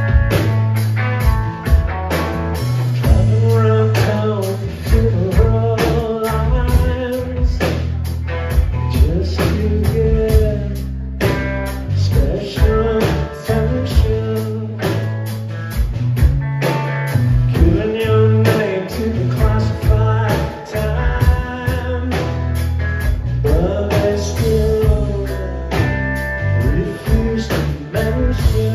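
Live rock band playing: electric guitar, electric bass and drums, with a man singing lead.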